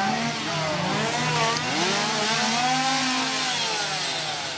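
Several two-stroke chainsaws revving up and down at once, their overlapping pitches rising and falling in long sweeps over a steady low drone.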